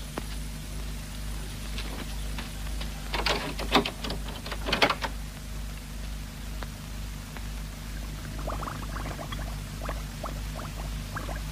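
Steady low mains hum and hiss of an old film soundtrack. A short cluster of knocks and scrapes comes about three to five seconds in, and fainter scattered clicks come near the end.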